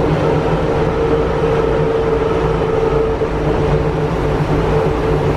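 Cabin sound of a Berlin U-Bahn HK-series train running between stations: a steady rumble of wheels on rail with a constant tone held over it.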